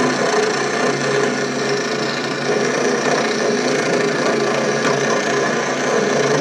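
Craftsman bandsaw, converted to slow speed with a gear reduction box, cutting steadily through a workpiece: a continuous rasping saw noise over the hum of its small electric motor.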